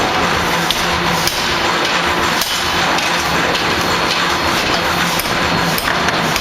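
Ring rolling machine running: steady loud mechanical noise with irregular metallic knocks and a low hum that comes and goes.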